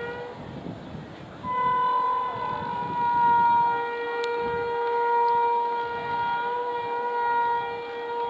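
WAP-7 electric locomotive's horn sounding as the train approaches: a short blast at the start, then one long steady blast from about a second and a half in until the end, over the low rumble of the oncoming train.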